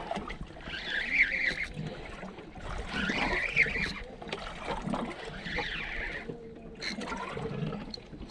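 Spinning reel cranked in bursts under heavy load: a whirring wind about every two seconds as the rod is pumped and line regained on a hooked fish, over low boat and water noise.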